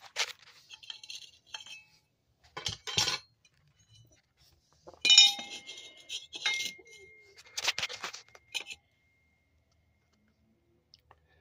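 Metal clinks and clatters from a bicycle chainring and its fittings being handled and mounted at the crank, in several short bursts. One knock about five seconds in leaves a thin ringing tone that hangs for a few seconds; the clatter stops near the end.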